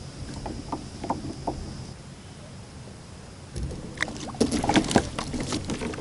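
Irregular clicks and knocks of fishing gear against a kayak, rods and reels being handled as a fish pulls on a suspended-bait rod. The clatter starts a little over halfway in; before that there are only a few faint ticks.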